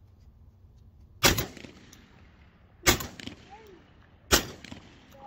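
A shotgun fires three shots at doves overhead, about a second and a half apart. Each shot is a loud, sharp report with a brief echo trailing after it.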